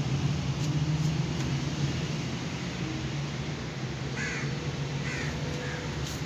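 A steady low mechanical hum, with a crow cawing three short times about four, five and five and a half seconds in.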